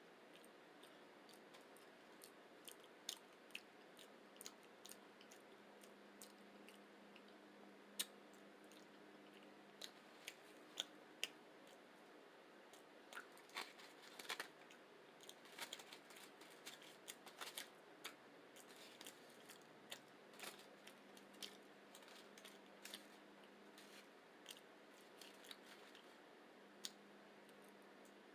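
A person chewing a rice and beans burrito: scattered, irregular mouth clicks and smacks, thickest in the middle, over a faint steady hum.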